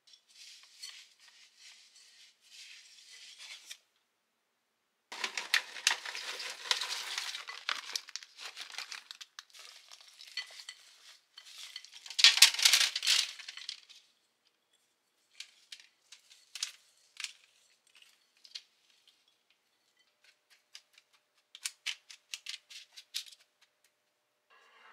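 Kitchen handling sounds: rustling and crinkling with sharp light clicks and knocks of dishes and utensils, in several short stretches broken by sudden dead silences.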